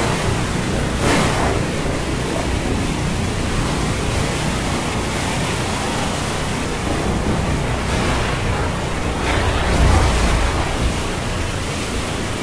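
Stormy sea: a steady rush of waves and wind, with a few brief surges and a deeper, louder swell near the end.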